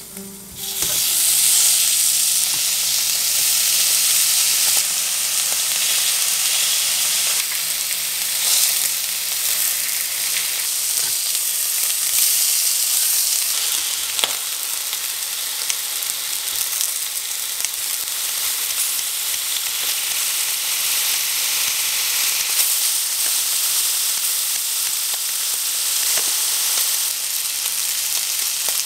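Pork belly slices sizzling in a hot nonstick frying pan. The sizzle starts about a second in as the meat goes into the pan, then stays steady. A few faint clicks come from metal chopsticks against the pan as the meat is turned.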